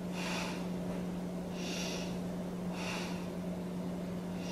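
A woman breathing audibly in a held yoga pose: three short breaths about a second or so apart, over a steady low hum.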